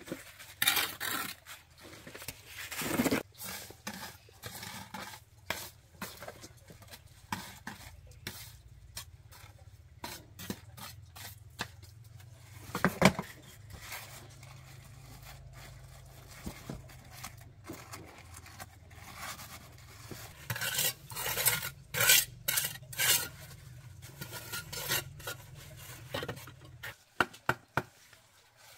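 Irregular clinks, scrapes and knocks of metal objects being handled, with one loud ringing clang about thirteen seconds in. A low steady hum runs underneath through most of the middle.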